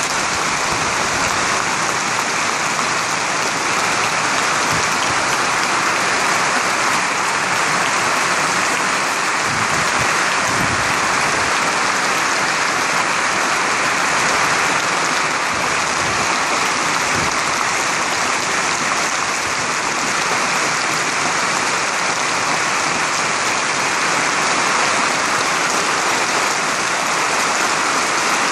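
A packed football stadium crowd applauding steadily, thousands of hands clapping into one continuous wall of sound: a minute-long tribute applause.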